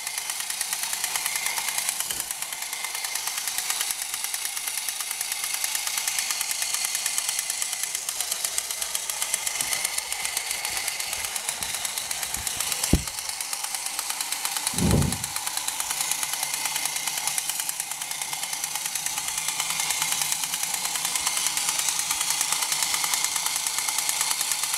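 Battery-operated 1960s TPS tin toy helicopter running: its small electric motor and gear train give a steady, high-pitched whir with a fine rapid rattle as the rotor spins. A sharp click comes about 13 seconds in and a low thump about 15 seconds in.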